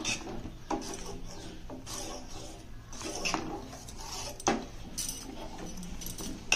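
A metal spoon scrapes and clinks against the sides and bottom of a stainless steel saucepan as custard is stirred continuously while it thickens on the heat. There is a sharper clink about four and a half seconds in.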